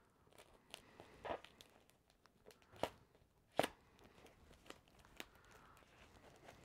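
Packing tape being peeled off a foam-wrapped rolled print, with the foam wrap crinkling: faint crackles and a few short rips, the sharpest about three and a half seconds in.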